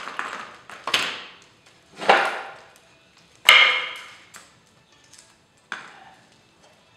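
Steel blade being taken off the underside of a tipped-over push mower, knocking against the deck and wooden blocks: a handful of separate knocks and clanks of metal and wood. The loudest, about halfway through, is a ringing metal clank.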